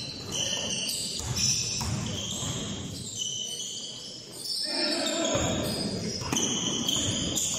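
Basketball game play on a hardwood gym floor: the ball bouncing as it is dribbled, and sneakers squeaking in short high chirps as players run and cut.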